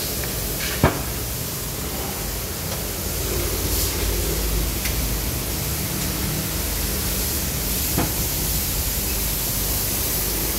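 Steady rushing noise throughout, with a sharp knock about a second in and a lighter one near the end.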